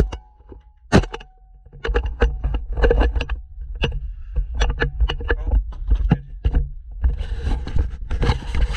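Two pistol shots, one right at the start and another about a second later, recorded through a GoPro 7's waterproof housing. Then, from about two seconds in, a run of knocks, clicks and rubbing as the camera in its plastic case is picked up and handled.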